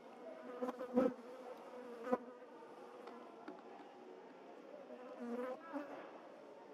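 An insect buzzing close by, a steady hum that wavers slightly in pitch, with two sharp clicks about one and two seconds in.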